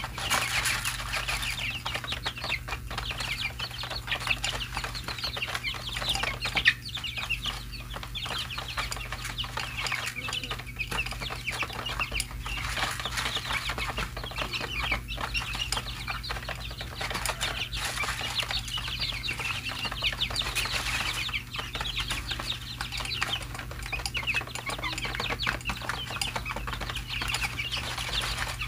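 A flock of 23-day-old chicks peeping continuously while they peck grain from a plastic feeding tray, with scattered light pecking taps and a steady low hum underneath.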